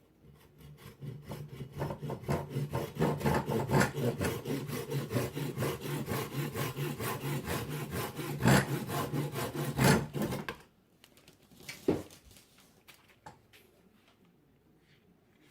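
Hand saw cutting through a piece of azalea wood in quick, even back-and-forth strokes. The sawing stops about two-thirds of the way through, and a single knock follows a second or so later.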